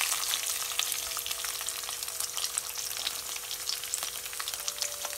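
Chopped garlic and curry leaves sizzling and crackling in hot groundnut oil in a kadai, the tempering stage of a South Indian thokku with dried red chillies and mustard-urad dal. The sizzle slowly dies down as the garlic settles into the oil.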